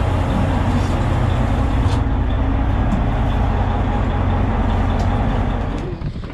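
Charter boat's engine running steadily under way, a loud low drone that drops away near the end.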